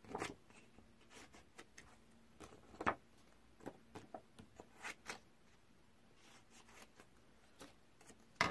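Scissors cutting colored craft paper: faint, irregular snips and paper rustles, with the clearest snips about three and five seconds in.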